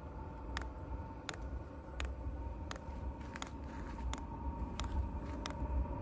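Diesel heater's solenoid fuel dosing pump ticking, about one quiet tick every 0.7 seconds, as it pumps homemade biodiesel with a few air bubbles still in the line. A steady whine from the running heater sits underneath.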